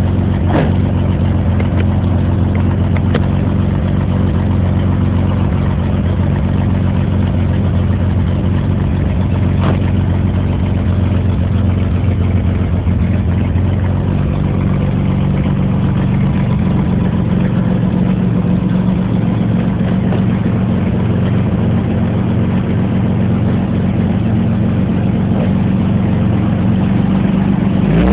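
Chevrolet Suprema 3.0's straight-six engine idling steadily, with a few light clicks in the first ten seconds.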